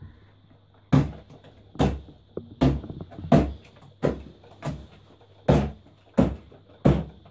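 Hands slapping down on a sheet of slime spread on a tabletop: nine sharp thumps, evenly spaced a little under one a second.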